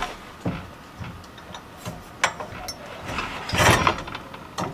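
Square steel tube of a Reese Towpower canoe loader clinking and knocking against its square steel socket on the hitch mount as it is fitted and slid down into it. There are a few light metal clicks, then a louder rattling scrape a little past halfway.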